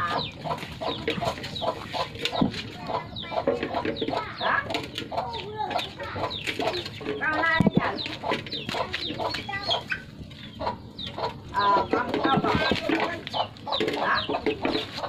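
A chicken clucking among a litter of puppies feeding from a metal basin, with many short sharp clicks and scrapes as they lick and chew at the pan.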